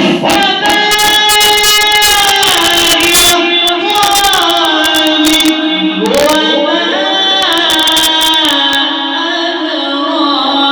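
A male Quran reciter's voice in mujawwad style, loud, singing long melismatic notes that step and glide in pitch. It begins abruptly at the start.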